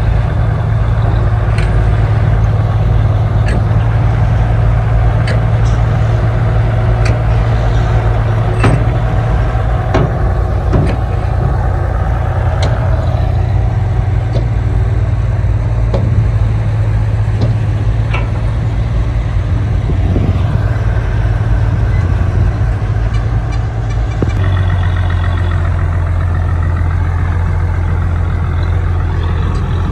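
Heavy diesel engine of earthmoving machinery running steadily, with scattered sharp knocks and clacks. The engine note shifts about three quarters of the way through.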